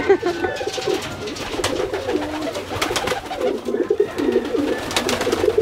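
Domestic pigeons cooing over and over, several overlapping wavering coos, with a few sharp clicks in between. The cooing is the resident birds' threat display toward a newly introduced young pigeon.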